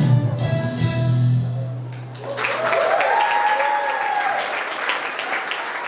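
Background music with a sustained low note ends about two seconds in. An audience then applauds, with a voice briefly calling out over the clapping.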